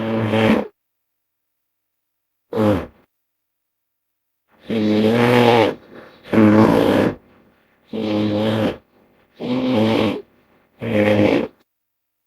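Made-up creature calls built from hippopotamus and bear recordings: a string of about seven deep, pitched animal calls, each under a second and a half long, with dead silence between them. The first is a short one about two and a half seconds in; the rest come close together in the second half.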